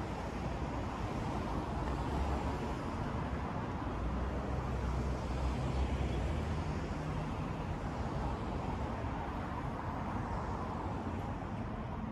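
City street traffic noise with a motor vehicle passing; its low rumble swells through the middle and fades away again.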